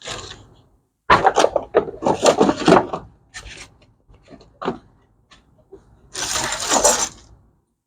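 Buffing compound bars and their packaging being handled and sorted through: irregular rustling, scraping and clicks, loudest in two spells, from about one to three seconds in and again near the end.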